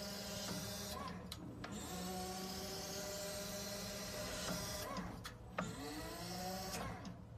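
Hitop CPD16 battery-electric forklift's electric motors whining steadily in three spells. The whine breaks off about a second in and again about five seconds in, with short clicks in each break, and its pitch glides up as it starts again.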